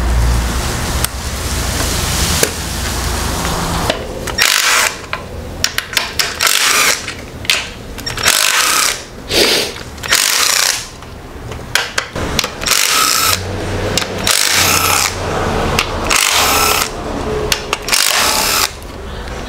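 Handheld power tool, such as a cordless ratchet or impact driver, run in a string of short bursts from about four seconds in, each under a second, some with a steady whine, while fasteners are taken out during the supercharger teardown.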